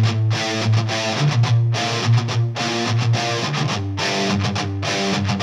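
Background music: a guitar-led track with a steady rhythm.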